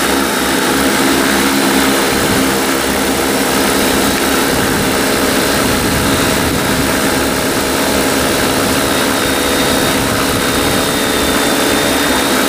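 Large agricultural spraying multicopter with 75 cm propellers hovering in place. Its rotors make a loud, steady, multi-toned hum over a rush of air.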